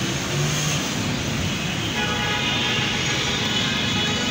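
Congested street traffic: a steady wash of engines and tyres on wet road, with vehicle horns sounding, most in the second half.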